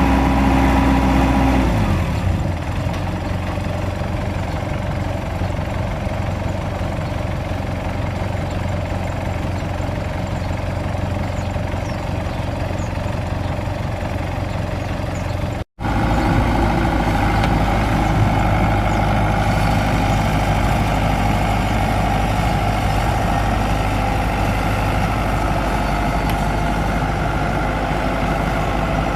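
Combine harvester's engine and machinery running steadily under load while harvesting, a continuous drone with a held tone above it. The tone shifts about two seconds in, and the sound cuts out for an instant about halfway through.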